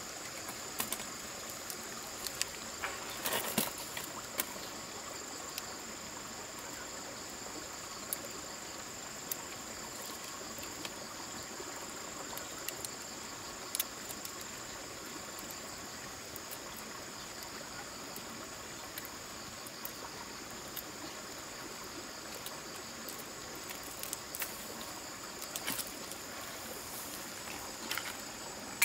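Steady high-pitched chorus of insects over the hiss of running stream water. Scattered sharp clicks and knocks come in clusters about three seconds in and again near the end.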